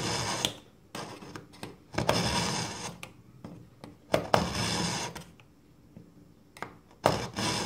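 Steel kitchen knife drawn repeatedly through the tungsten carbide slot of an AnySharp pull-through knife sharpener, grinding the edge of a blunt blade. Each pull is a rasping metal scrape; there are about four main strokes, roughly two seconds apart, with a couple of lighter touches between them.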